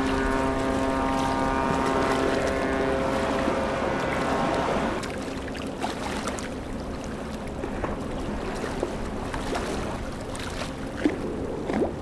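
A boat's steady pitched drone, one unchanging tone for about five seconds before it fades out. After that the rush of water and wind remains, with a few light knocks.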